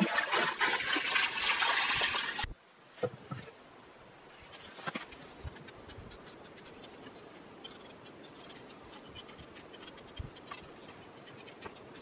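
Water splashing from a small trickling stream onto a potato being rinsed, cutting off abruptly after about two and a half seconds. Then faint scraping and ticking of a knife peeling a raw potato.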